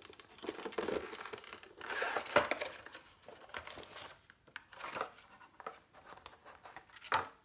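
Packaging being handled as a gear lever is unpacked: a cardboard box and a clear plastic case rustling and crinkling in irregular bursts, with a sharp click near the end.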